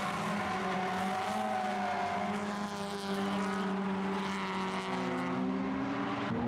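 Drift car engine held at high revs with a near-steady pitch that steps up about five seconds in, over the hiss of tyres sliding.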